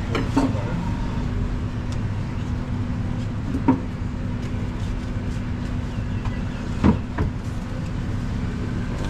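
Steady low background rumble with a constant hum, broken by three short sharp knocks: just after the start, about three and a half seconds in, and about seven seconds in.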